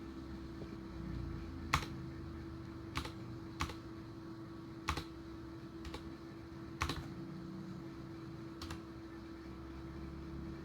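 Ducky One TKL mechanical keyboard with brown switches: single keys pressed one at a time, about six separate clacks one to two seconds apart. A steady low hum runs underneath.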